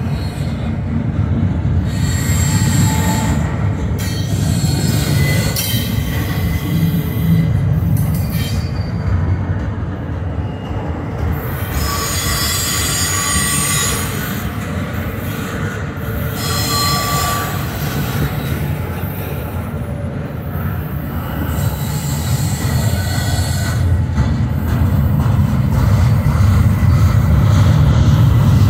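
Double-stack intermodal container train of well cars rolling past: a steady low rumble of steel wheels on rail, broken several times by bursts of high-pitched wheel squeal.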